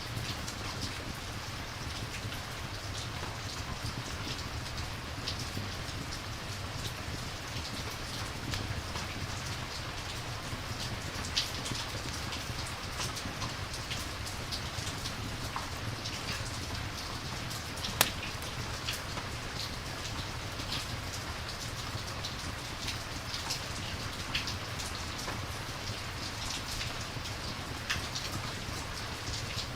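Steady rain falling, with scattered sharp pops; the loudest comes about halfway through.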